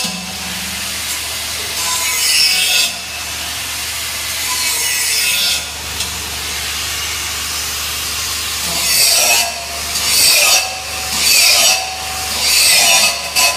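Flux-cored arc welding: a steady crackling hiss of the arc over a low hum, swelling and easing in strokes about once a second in the second half.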